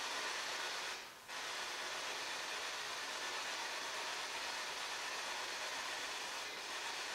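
P-SB7 spirit box sweeping through radio channels: a steady hiss of static that drops out briefly about a second in.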